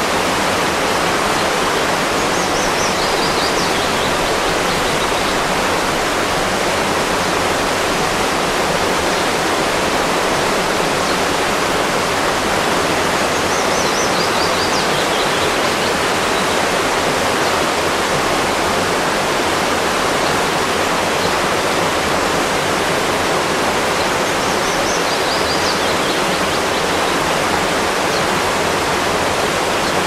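Waterfall: a steady, loud rush of turbulent falling water, dense and unchanging.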